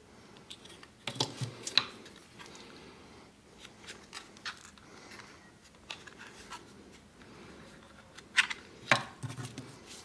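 Parts of a disassembled remote control being handled and set down: sharp clicks and knocks of the hard plastic case, circuit board and rubber keypad. The loudest clusters come about a second in and near the end, with lighter ticks and rustling between.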